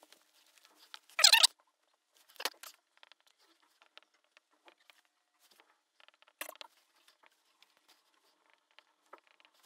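Whiteboard marker writing on the board: faint taps and scratches of the felt tip, with a louder sharp scraping noise about a second in and shorter ones near two and a half and six and a half seconds.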